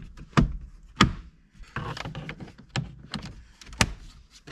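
Plastic interior trim panels of a 2022 Honda Accord being pressed and snapped back into place: a series of sharp clicks and knocks, the loudest about half a second in, at one second and near the end.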